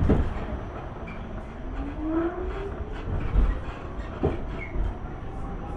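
Subway train running, heard from inside the car: a steady low rumble with a sharp knock at the very start and another about four seconds in, and a whine that rises in pitch.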